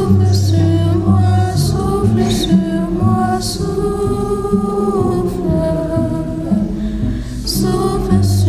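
A group singing a slow worship song, with sustained low instrumental notes underneath.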